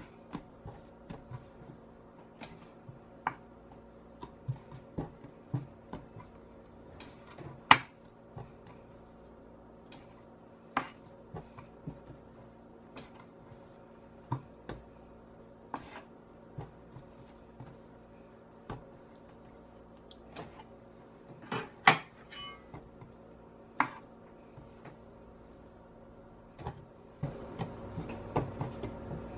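Dough being portioned with a metal bench scraper on a wooden board: scattered soft taps and knocks as the scraper cuts through and the dough pieces are handled and set down, with a couple of sharper knocks. A faint steady hum sits underneath.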